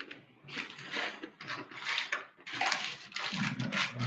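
Roll of parchment paper and its cardboard box rustling and crinkling as the paper is unrolled from the box, in a run of separate rustles.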